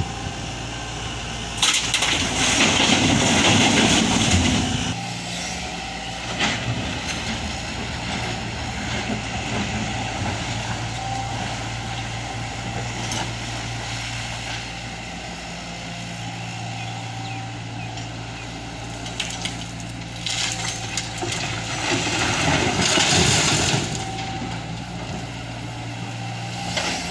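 Stone rattling and crashing loudly twice, about two seconds in and again around twenty seconds in, as excavator bucket loads are dumped into a truck. A heavy diesel engine hums steadily underneath.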